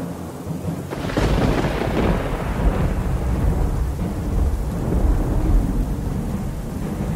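Thunder: a sudden crack about a second in, then a long low rumble that slowly fades.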